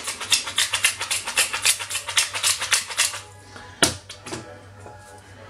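Hand-twisted pepper mill grinding black pepper: a rapid run of clicks that stops about three seconds in. A single knock follows near four seconds, as the mill is set down on the stone counter.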